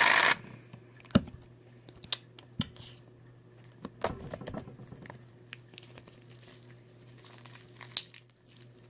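An aerosol shaving cream can spraying with a loud hiss that cuts off just after the start. Then scattered soft clicks and crinkly, sticky sounds as slime and shaving cream are handled and mixed.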